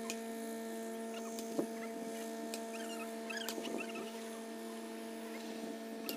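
A steady electrical-sounding hum with several evenly spaced overtones, under faint short high chirps and a few sharp clicks.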